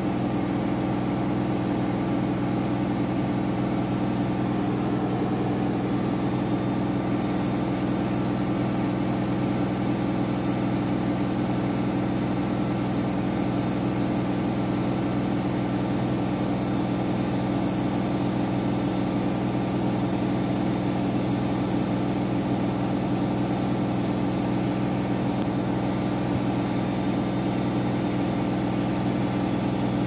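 Candy front-loading washing machine in its final spin, the drum turning at a steady high speed with a loud, even drone.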